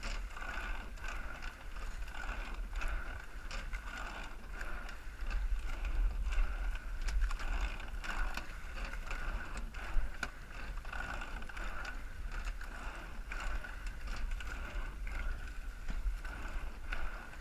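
Racing coxed eight under way: oars knocking in their oarlocks and sliding seats rolling with each stroke, heard as repeated clicks and clunks over the steady rush of water along the hull.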